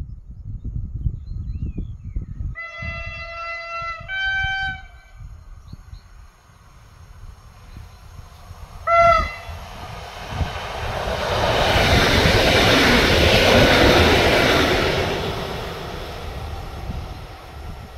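Koleje Mazowieckie EN57AL electric multiple unit sounding its two-tone horn about three seconds in, a longer lower note then a higher one. It gives a short blast at about nine seconds, then passes with a rush of wheel and running noise that swells, peaks and fades away near the end.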